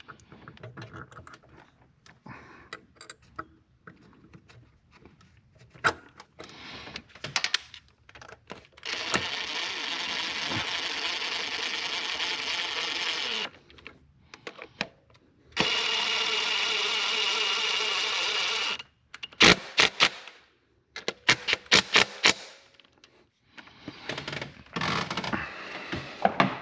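Cordless power tool running in two spells of about four seconds each, driving in the thermostat housing's two new bolts, followed by a quick series of sharp clicks.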